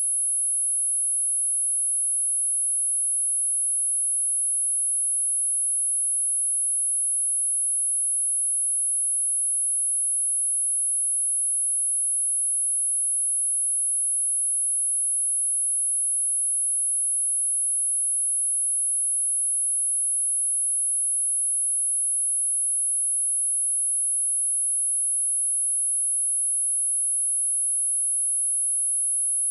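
Steady, high-pitched pure sine-wave test tone at 10,628 Hz: one unchanging note with nothing else under it, the kind played to test a speaker or clear water and dust from it.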